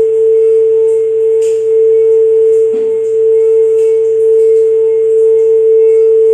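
Quartz crystal singing bowl ringing one steady, sustained tone, with a faint wavering overtone above it.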